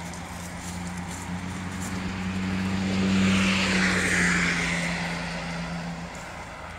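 A motor vehicle going by: a steady engine hum with a swell of engine and tyre noise that peaks about three seconds in and then fades, the hum dropping away about six seconds in.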